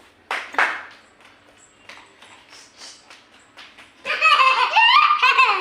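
A toddler's high, wavering cry, starting about four seconds in and lasting a second and a half.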